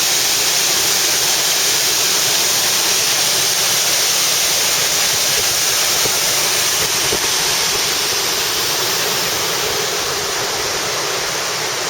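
Magia Blanca waterfall pouring steadily, heard close up at its base as a dense, even rush of falling water.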